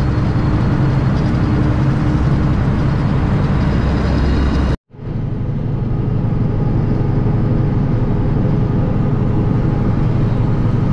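Steady drone of a semi truck's engine and road noise inside the cab while driving. About halfway through, the sound cuts out for an instant and fades back in.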